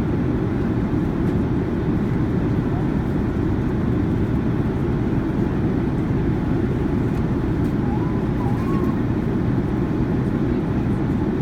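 Steady cabin noise of a Boeing 787-9 Dreamliner in flight: an even, low rushing of airflow and engines that does not change in level.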